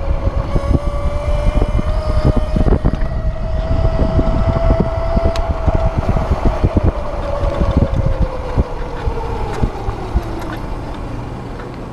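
Uberscoot 1000 W 36 V electric scooter riding at about 15 to 20 mph: a steady motor whine that rises slightly in pitch as it speeds up, then falls through the second half as it slows. Under it, wind buffets the microphone and the road rumbles, both easing off near the end.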